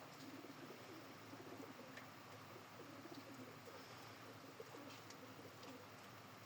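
Pigeons cooing faintly, low warbling coos repeated over and over.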